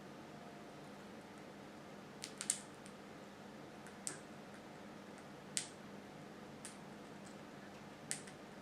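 Quaker parrot cracking and husking a safflower seed in its beak: about six sharp little clicks, a second or two apart, over a quiet room.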